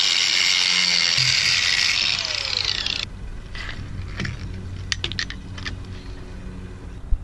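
Cordless drill running steadily, unscrewing the fastenings of a yacht's roller-furler drum; it cuts off about three seconds in. Afterwards a few light metallic clicks and knocks as the furler's metal parts are handled.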